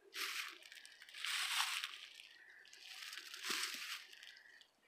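Footsteps crunching through dry fallen leaves, one slow crunching step about every second and a half.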